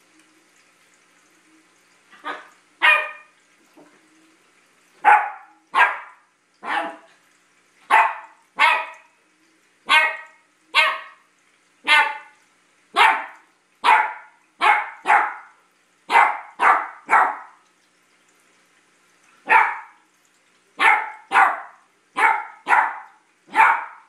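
A puppy barking at a coffee grinder it is afraid of. There are about two dozen short, sharp barks, roughly one a second in quick twos and threes, beginning about two seconds in, with a brief pause late on.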